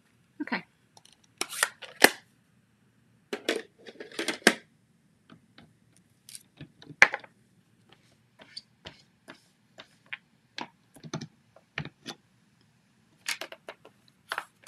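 Handling of card-making supplies on a tabletop: irregular small clicks, taps and short paper rustles as stamps, ink pads and card stock are picked up and set down, with the sharpest knocks about two and seven seconds in.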